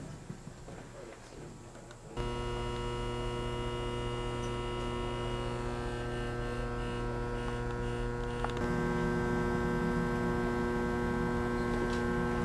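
A steady machine hum made of several held tones. It switches on abruptly about two seconds in and takes on a lower, fuller layer around two thirds of the way through.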